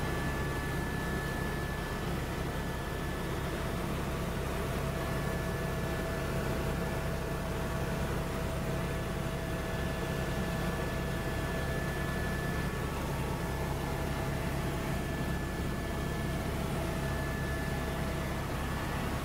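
Helicopter in cruising flight, heard from inside the cabin: a steady low rotor and engine drone with two thin, steady whining tones over it.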